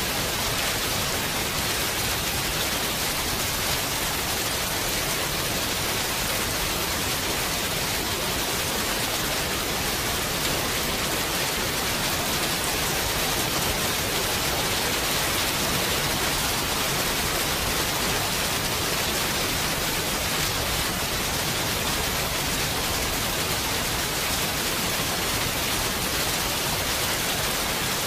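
Steady rain falling, an even hiss with no changes, strongest in the high range.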